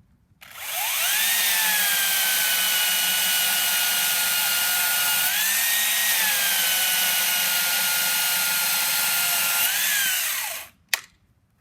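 Makita XCU06 18-volt battery top-handle chainsaw running in torque mode and cutting through a 5-inch river birch log: the electric motor whines up, settles at a lower pitch under load through the cut, lifts briefly midway and again near the end, then winds down and stops about ten and a half seconds in. A single sharp click follows.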